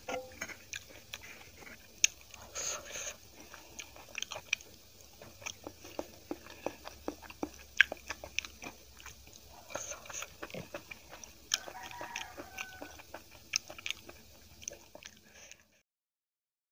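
Close-miked eating sounds: chewing with many small, sharp wet clicks and smacks as soft kadhi is eaten off the fingers. The sound cuts off abruptly about a second before the end.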